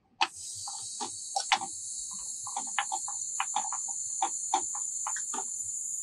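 Refrigerant gas hissing into an evacuated package AC system through the manifold gauge set and charging hose, starting abruptly as the valve is opened and then holding as a steady high hiss. Irregular sharp clicks sound over it for the first five seconds or so.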